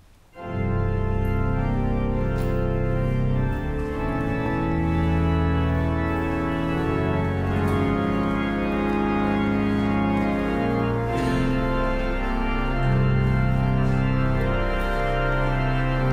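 Organ music starts about half a second in and plays slow, held chords over deep bass notes.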